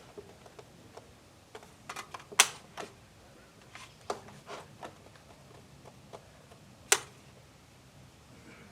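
A scatter of sharp clicks and knocks, with two much louder sharp cracks about two and a half seconds in and near seven seconds.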